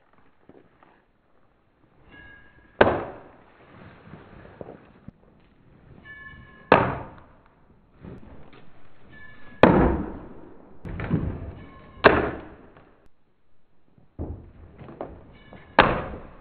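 Small forged rebar throwing knife thrown repeatedly into a vacuum-packed cut of meat on a plywood target, five sharp impacts a few seconds apart with quieter handling noise between them.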